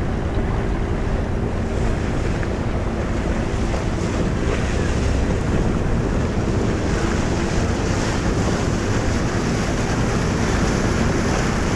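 Wind rushing across the microphone, with water lapping around a small boat. It is a steady noise with no distinct events.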